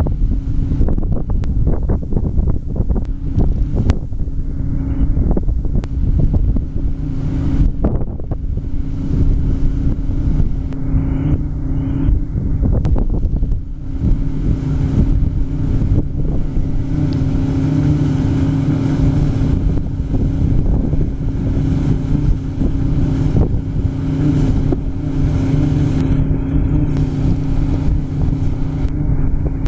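Harvest machinery engine running steadily under load, with wind buffeting the microphone, heaviest in the first half.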